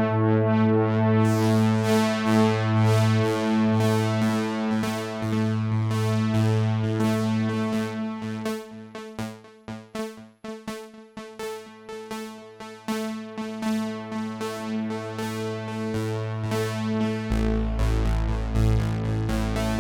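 Sequential Prophet-6 analogue polyphonic synthesizer playing a factory preset. A held low note sounds under a fast repeating pattern of short notes, which thins out and gets quieter midway. A deeper bass note comes in near the end.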